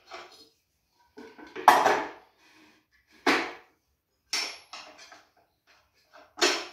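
Metal clinks and knocks as a grinding wheel is lifted off the Tormek sharpener's shaft and another wheel is slid on and fitted. There are four separate clanks, the loudest about a second and a half in.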